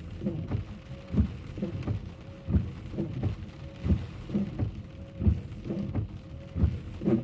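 Car windshield wipers working in rain inside a moving car, a low thump repeating about every second and a half, with weaker thumps in between, over steady rain and road noise.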